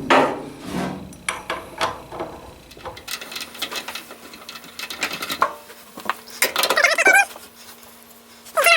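Small clicks and knocks of metal dryer parts being handled and fitted during reassembly, with a low steady hum in the background. A brief wavering, high-pitched squeal comes about two-thirds of the way through, and again near the end.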